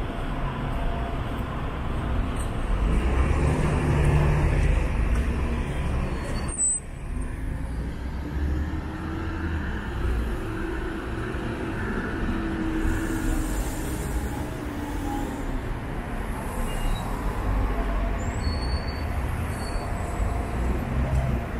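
Road traffic: cars passing close by with a steady rumble of engines and tyres, loudest about four seconds in.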